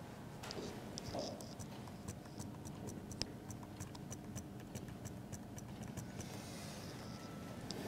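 Quick run of light plastic ticks from a computer mouse's scroll wheel as a document is scrolled, irregular and several a second, over a faint room hum.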